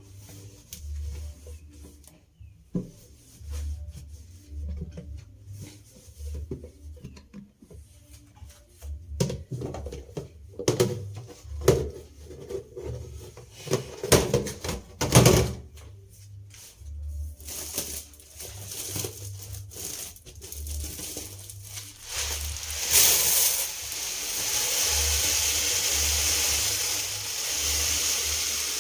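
Kitchen clatter: containers and utensils handled and set down, with scattered knocks that are loudest about halfway through. Near the end a steady rush of running water starts, as from a kitchen tap.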